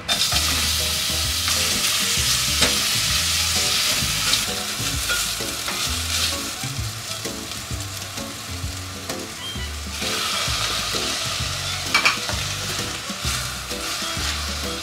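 Sliced onions sizzling in hot olive oil in a stainless steel pot, starting sharply as they drop in and stirred with a spatula. The sizzle swells again about ten seconds in as thawed shrimp go into the pan with their liquid, with a few sharp spatula knocks on the pot.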